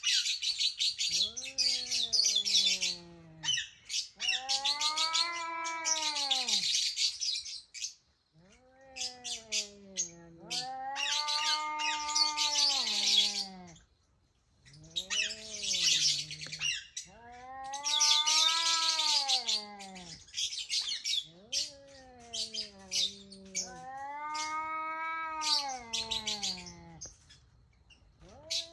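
A cat meowing over and over, long drawn-out meows that rise and fall in pitch, about one every three seconds. Bursts of high, rapid chirping come in between the meows.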